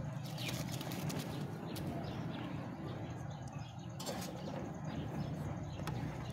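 Dry rice poured into a pot of water over a wood fire: a run of small clicks and splashes in the first two seconds. A sharp knock about four seconds in and a few lighter ticks follow, as a metal spoon goes to the aluminium pot.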